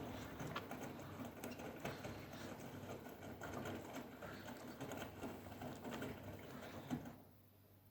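Siemens front-loading washing machine in the wash phase of a 60 °C white-wash program: the drum turning the wet laundry, with sloshing water and many small knocks and clicks. It goes quiet suddenly about seven seconds in.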